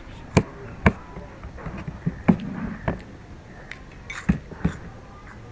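Cutlery knocking against plates: several sharp, separate clinks and knocks, irregularly spaced, as the food and fork are felt for blindfolded.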